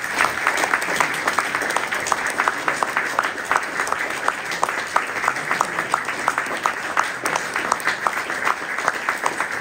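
Audience applauding steadily: many hands clapping at once, with sharp individual claps standing out of the crowd's clapping.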